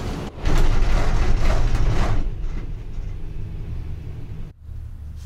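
Gondola lift cabin pulling out of the station: loud mechanical noise of the station machinery for about two seconds, then a quieter steady low hum as the cabin runs out along the cable.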